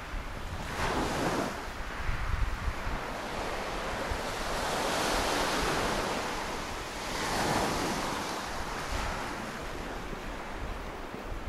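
Sea waves breaking and washing onto the beach, swelling and fading every few seconds, with wind rumbling on the microphone.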